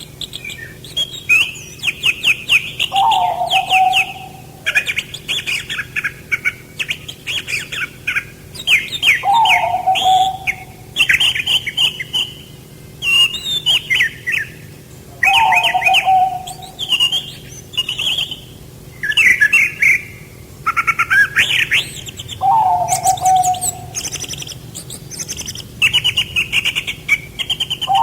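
Songbirds chirping in bursts of rapid high notes. A lower whistled call that falls in pitch comes in about every six or seven seconds.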